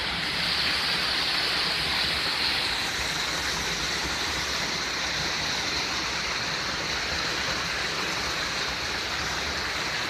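Small waterfall of a hot sulphur spring pouring over rocks, a steady rushing of water.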